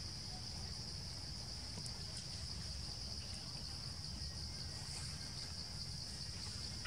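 Steady, unbroken high-pitched drone of insects in the forest canopy, over a constant low rumble.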